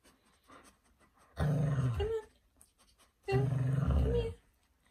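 Alaskan Malamute giving two drawn-out growling grumbles, about two seconds apart, each ending in a short higher note.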